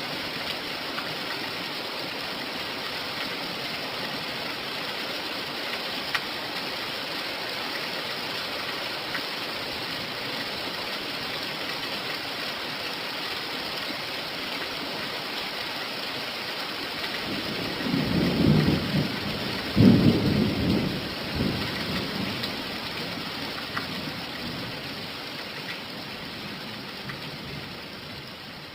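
Steady rain falling, with a low rumble of thunder rolling in a little past the middle, swelling in several waves over a few seconds and then fading.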